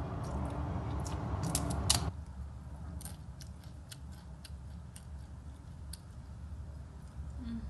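Crisp melinjo crackers (emping) crunching as they are bitten and chewed close to the microphone. A sharp crack about two seconds in is followed by a run of smaller crunches every few tenths of a second.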